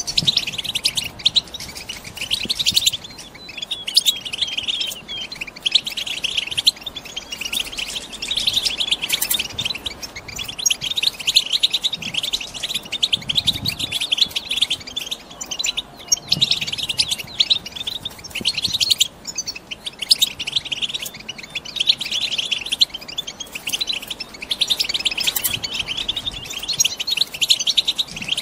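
Female European goldfinches twittering: a dense, continuous run of rapid high chirps. This is the soft chattering call of hens in breeding condition, used to set a male goldfinch singing.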